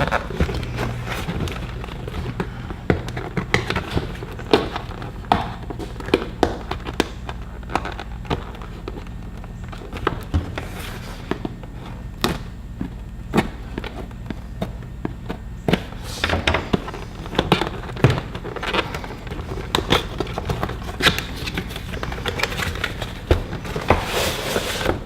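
Irregular clicks, taps and knocks of battery-service hand tools and their packaging being handled, over a low steady hum.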